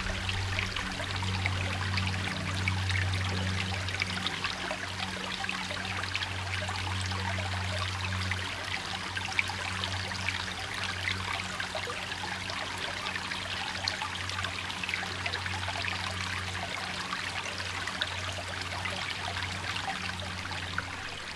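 Shallow stream trickling steadily, with a low steady hum underneath.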